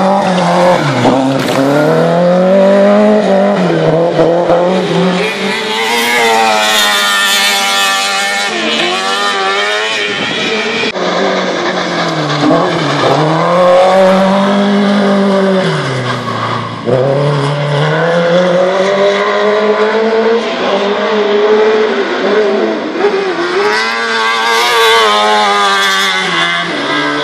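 Autocross car engines revving hard on a dirt course, the pitch climbing and dropping every few seconds as the cars accelerate, lift off and accelerate again.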